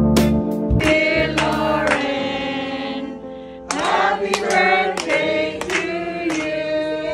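Background music: a song with singing over keyboard accompaniment, dropping away briefly about three seconds in before coming back.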